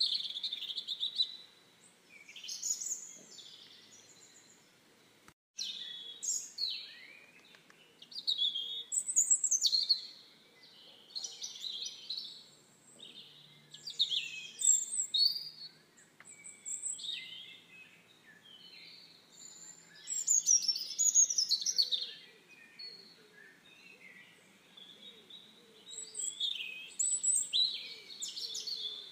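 Songbirds singing, a string of short, high chirping and warbling phrases one after another with brief pauses between. The sound cuts out for an instant about five seconds in.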